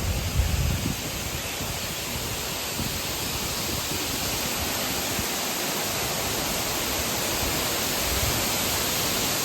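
Waterfall's rushing water: a steady, even roar of falling water that grows slightly louder over the seconds.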